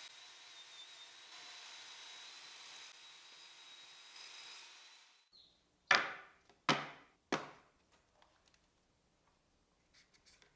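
A woodworking power tool running steadily with a thin high whine stops about five seconds in. Then come three sharp wooden knocks a little over half a second apart, the loudest sounds here, as cedar pieces knock on wood.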